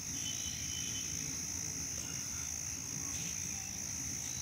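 A steady, high-pitched chorus of calling insects, with a few faint chirps over it and a low rumble underneath.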